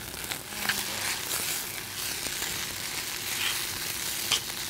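Dolsot bibimbap sizzling in a hot stone bowl as rice, egg and vegetables are stirred, with a metal spoon scraping and clicking against the stone. The bowl is hot enough to crisp the rice into a crust (nurungji).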